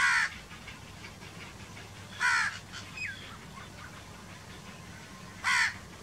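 House crow cawing: three short, harsh caws about two to three seconds apart.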